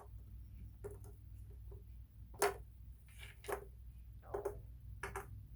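Small toy birds being set down one after another in a matching game: a string of about seven light clicks and taps, the loudest about two and a half seconds in.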